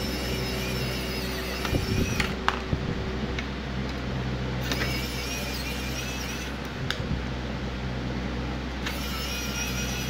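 Pen-style electric screwdriver whining in three short runs as it backs out the screws holding a laser printer's logic card. A steady low hum lies underneath.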